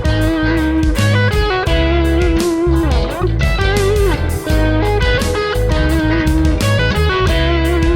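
Background music: an electric-guitar track with a steady beat and bass.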